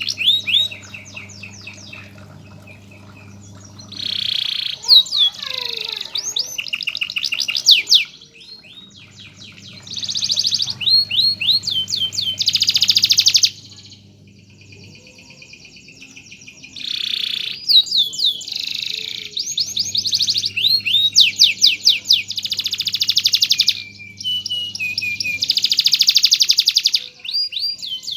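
A canary singing in long phrases of rapid trills and rolling repeated notes, broken by short pauses of a second or two.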